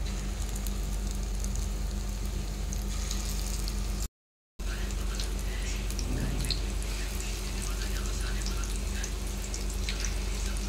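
Bottle-gourd pakora batter sizzling and crackling in hot oil in an iron kadai as fresh handfuls are dropped in, a steady hiss with scattered small pops. A brief break of silence cuts in about four seconds in.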